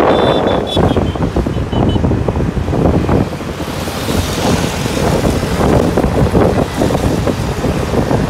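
Heavy wind buffeting on the microphone of a vehicle moving through road traffic, mixed with the steady noise of engines and tyres. A few short, high beeps sound in the first two seconds.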